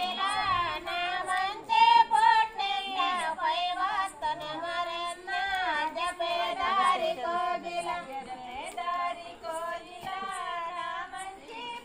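Women and girls singing a song together, unaccompanied, their voices held and wavering on long notes.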